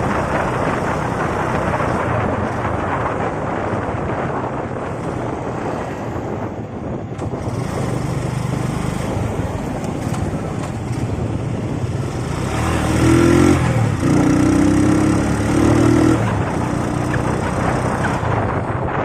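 Motorcycle riding along a road: steady wind and road rush with the engine running underneath. About two-thirds of the way through, a louder pitched sound comes and goes three times.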